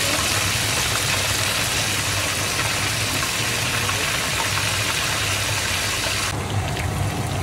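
Perch pieces deep-frying in hot oil in a wok, a loud steady sizzle over a low steady hum. About six seconds in the sizzle drops sharply to a quieter crackle with small pops.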